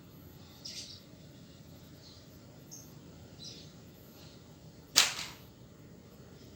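Bees humming faintly and steadily, with a few short bird chirps and one sudden loud, brief noise about five seconds in.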